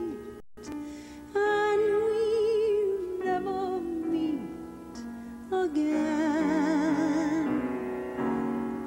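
A woman's soprano voice singing a slow ballad, holding long notes with wide vibrato over soft accompaniment. The sound cuts out for an instant about half a second in.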